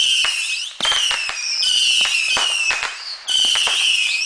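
Fireworks going off: shrill whistles, several in a row, each starting suddenly and sliding slowly down in pitch, over a fast run of sharp pops and cracks.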